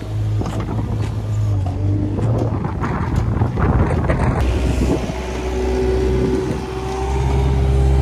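Diesel engine of a Gehl 540 compact wheel loader running as it drives along the feed alley. About a third of the way in comes a stretch of scraping as its front feed-pusher blade shoves silage over the concrete. The engine grows louder near the end.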